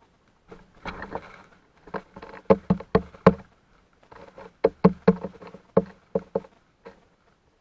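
Birds pecking and hopping on a feeder close to the microphone: irregular sharp taps and knocks with a hollow ring, in two quick flurries.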